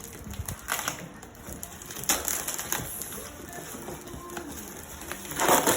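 Packaging being handled and torn open during unboxing: irregular crackling, rustling bursts, the loudest near the end.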